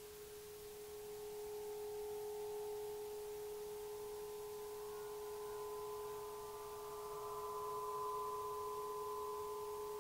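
A 104-inch Aeolian wind harp's strings sounding in the wind: a steady low tone with higher overtones that swell in over the first few seconds and grow stronger later.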